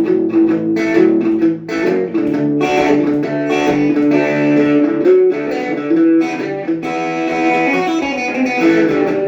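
Electric guitar played through a small battery-powered Blackstar practice amp on its overdrive channel with the gain turned down a little, giving a bluesy, rocky tone: a lick of quickly picked single notes mixed with held notes.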